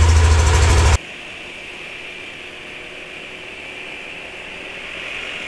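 Yamaha Aerox scooter engine idling, heard close to the CVT housing as a deep steady hum; the narrator takes its rough idle as a sign of an unhealthy engine, which he blames on the engine oil. About a second in the engine sound cuts off abruptly, leaving a steady hiss.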